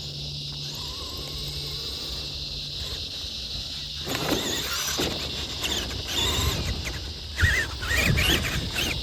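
Traxxas Summit RC truck's stock brushed electric motor and drivetrain whining and rising and falling in pitch as the throttle is worked, with the tyres scrabbling in sand from about four seconds in. There is a sharp thump a little past seven seconds. A steady high insect-like buzz runs underneath.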